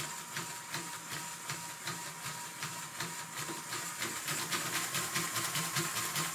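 Lego Wankel rotary engine model running on its electric Lego motor: a steady motor whine under a regular clatter of plastic gears and rotor, growing louder and quicker about four seconds in.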